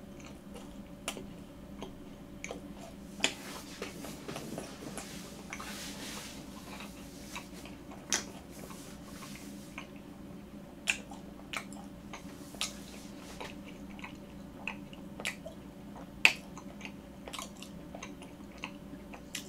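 A person chewing food close to the microphone: moist mouth clicks and smacks at irregular intervals, over a faint steady hum.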